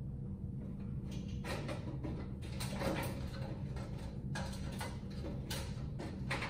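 Faint rustling and a few light taps as hands tuck wiring into a sheet-metal fluorescent troffer, over a steady low room hum.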